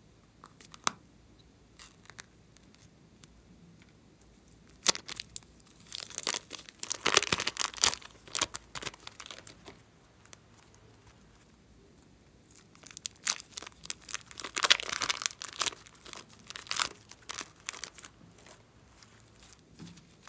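Plastic piping bags crinkling and crackling as they are squeezed and crumpled by hand to press out soft clay, in two dense bursts of several seconds each with scattered lighter crackles around them. A few small clicks come in the first couple of seconds.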